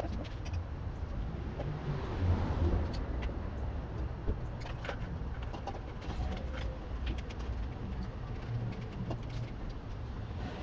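Scattered small metallic clicks and taps of hand tools being handled over a low, steady background rumble.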